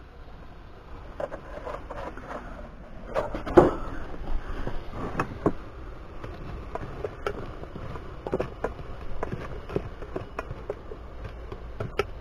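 Handling noises as gear is moved about: scattered knocks, clicks and rustles, the loudest a sharp knock about three and a half seconds in.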